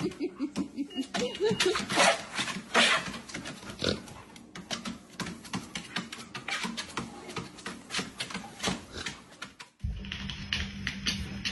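A dog on a walking treadmill: quick, uneven taps of its paws and claws on the moving belt, mixed with the dog's panting and small vocal noises. About ten seconds in, this cuts off suddenly and music with a steady low hum takes over.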